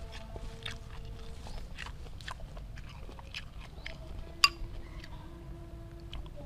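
Close-up chewing of grilled apple snail meat: wet mouth clicks and smacks at an uneven pace. One sharp click, louder than the rest, comes about four and a half seconds in.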